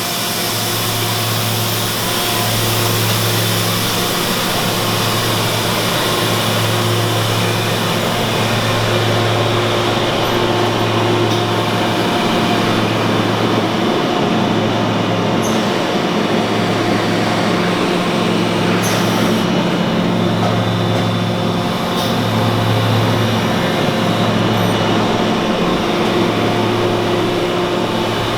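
Makino F5 CNC vertical machining center running: a steady mechanical hum with a throbbing low drone and hiss, broken by a few sharp clicks.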